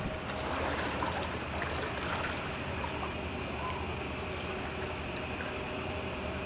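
Steady waterfront ambience: small waves lapping and wind noise, with a faint steady hum underneath.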